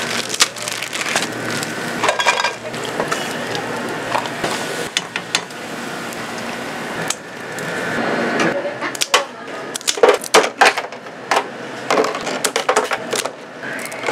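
Clatter of kitchen utensils and dishes at a food stall: irregular clinks and knocks that come thicker in the second half, with voices faintly behind.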